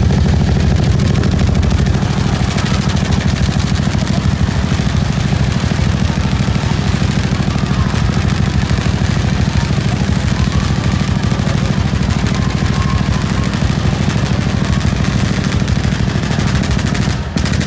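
Fully automatic paintball gun firing one long unbroken burst of rapid shots, which stops shortly before the end.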